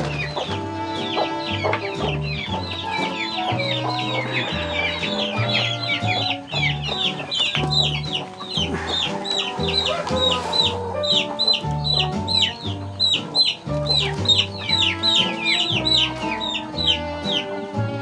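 Chickens clucking with chicks peeping in many rapid, short, high calls that slide downward, several a second, over background music with a stepped bass line.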